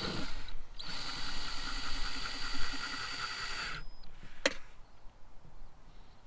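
Cordless drill driving down a solar panel mounting screw: a short burst, then a steady whine for about three seconds that cuts off abruptly, followed by a single click.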